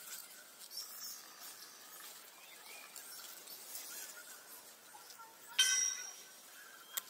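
Faint background with one short, high-pitched animal call about five and a half seconds in, followed by a sharp click just before the end.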